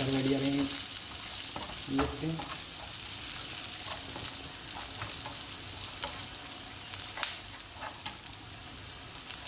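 Sliced onions, curry leaves and green chillies sizzling in hot oil in a nonstick frying pan, stirred with a plastic slotted spatula that scrapes and taps the pan now and then.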